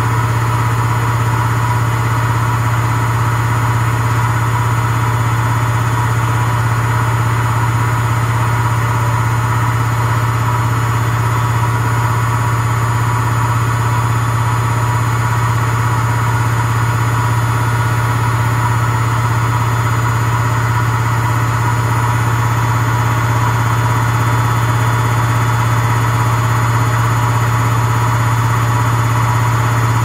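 Samsung front-loading washing machine in its spin cycle, the drum turning at a steady speed with a steady low hum from the motor and drum.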